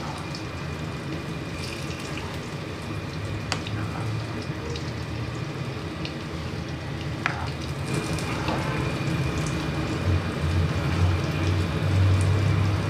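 Khichuri of rice and moong dal simmering and bubbling in a pan, with a spoon stirring through it and a few sharp clicks of the spoon against the pan. A low steady hum sits underneath and grows a little louder near the end.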